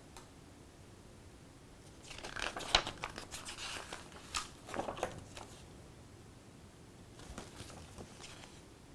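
Paper pages of an instruction manual being turned, rustling and crinkling with sharp crackles for a few seconds, then a second, lighter bout of page rustling near the end.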